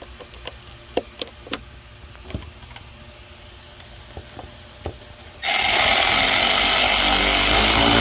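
A few sharp plastic clicks and knocks as an electrical connector is plugged in. About five and a half seconds in, a cordless power tool driving a socket on a long extension starts running loudly and steadily for about three seconds, tightening a worm-gear hose clamp on the engine's air intake tube.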